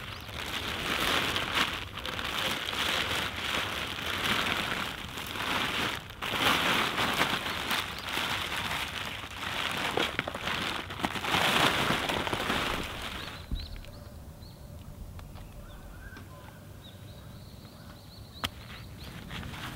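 Thin plastic film covering napa cabbages crinkling and rustling as it is lifted and pulled back by hand, in repeated bursts; the crinkling stops about two-thirds of the way through, leaving only faint background.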